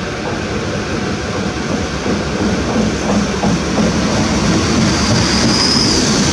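Koleje Mazowieckie SA135 diesel railcar running past along the platform, its engine and wheels on the rails growing louder as it comes alongside. A brief high-pitched squeal comes about five seconds in.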